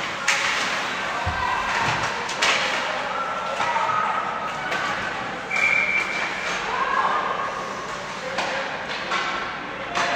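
Youth ice hockey game play: several sharp knocks of sticks and puck against the boards and ice, over spectators' scattered voices and calls.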